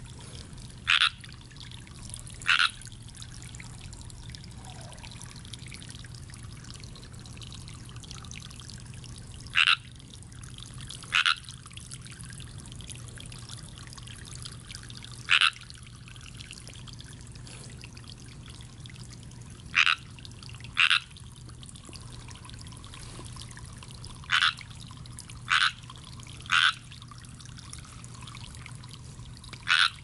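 A frog, which the uploader takes for a Pacific chorus frog, croaking in short single calls. There are about a dozen, unevenly spaced, some in quick pairs and threes, over a steady trickle of pond water.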